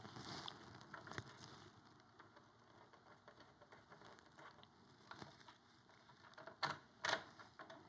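Faint handling of small CPU-cooler mounting hardware (brackets, spacers and screws): scattered light clicks and rustles, with two sharper clicks near the end.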